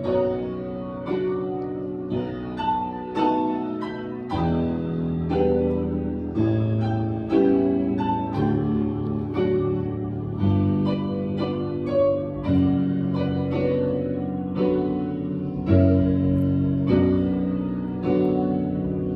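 Slow instrumental music: melody notes and chords struck about once a second, each ringing on and fading before the next.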